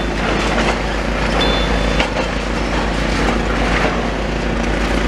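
Demolition excavator at work on a building: its diesel engine running under a steady din, with repeated knocks and clattering of breaking masonry and rubble.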